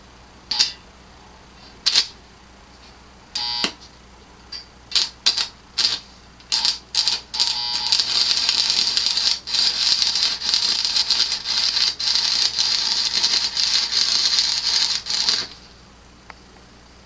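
Stick welder arc: the electrode is struck in several brief, crackling tries, then an arc is held with a steady crackle for about seven seconds before it stops near the end. The welds are not taking.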